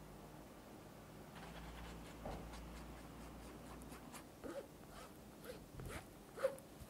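Silicone spatula pressing thick chocolate custard through a fine-mesh metal sieve, a soft scraping, broken by several light clicks and taps of the spatula and sieve against the glass dish; the sharpest click comes near the end.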